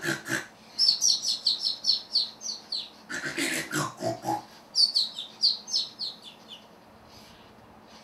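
Animatronic parrot's recorded voice doing a comic snore: a snore followed by a run of quick falling chirps, twice over.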